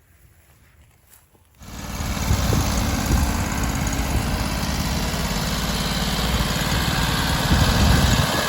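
An engine running steadily, coming in suddenly and loudly about a second and a half in after a quiet start.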